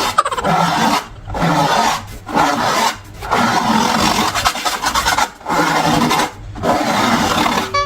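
Hand rubbing in repeated strokes of one to two seconds, with short breaks between them.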